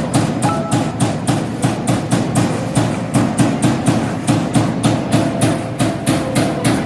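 CNC hydraulic turret punch press punching sheet metal in a steady rhythm of about three strokes a second, over a continuous hum.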